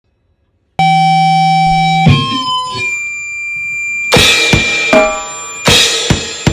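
Goregrind band starting a track after a moment of silence. Under a second in comes a held pitched note, then a few sliding notes. About four seconds in, guitar and drum kit come in with separate, stop-start hits and cymbal crashes.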